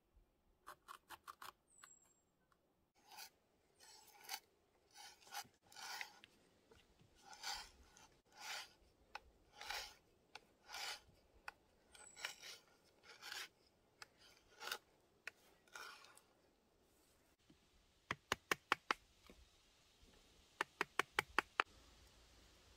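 Knife carving a block of wood: a series of short slicing strokes, about a dozen, roughly a second apart. Near the end come two quick runs of sharp metallic clicks.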